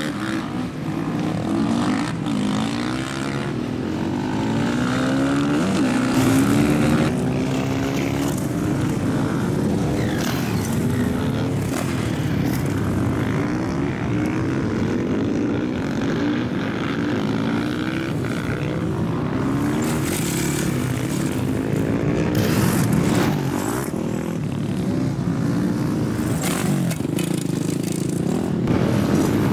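Several supermoto motorcycles racing, their engines revving up and down through the gears, several pitches overlapping at once.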